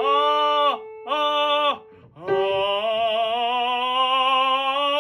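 Classical singing of a vocal exercise: two short sung notes, a brief break, then one long held note with vibrato that rises slightly in pitch, over a steady held accompanying tone in the first two seconds.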